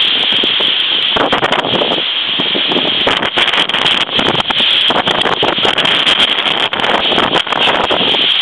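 Typhoon-force wind buffeting the camera microphone in loud, uneven gusts.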